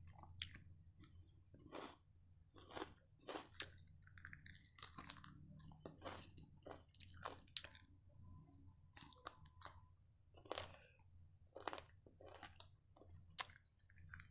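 A person biting and chewing deep-fried chicken kebab, with irregular crunches about once a second.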